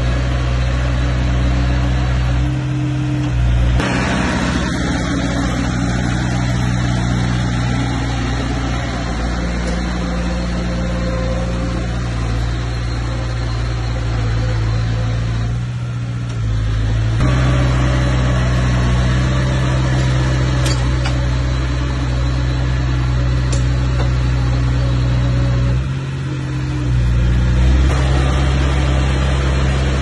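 Bulldozer's diesel engine running steadily under load. Its note drops and picks up again three times as the machine works.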